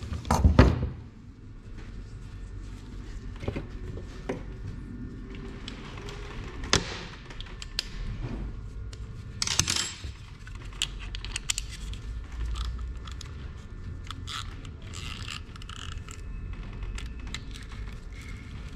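Engine parts and tools being handled during assembly: a sharp knock about half a second in, further knocks, a louder clatter near the middle, then many light clicks.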